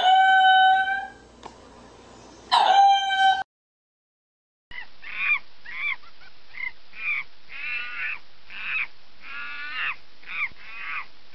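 A meerkat, a kind of mongoose, gives two loud, drawn-out calls at a steady pitch. After a second's silence, a monkey gives a rapid series of about a dozen short, arching calls.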